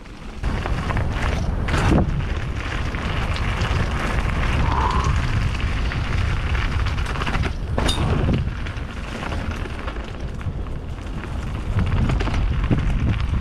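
Intense Tracer enduro mountain bike descending a wet, rocky trail: tyres rolling over rock and roots, with a steady low rumble on the helmet or chest camera's microphone and sharp knocks of the wheels hitting rocks about two and eight seconds in.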